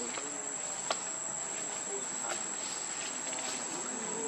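Insects droning steadily at one high pitch, with a sharp click about a second in.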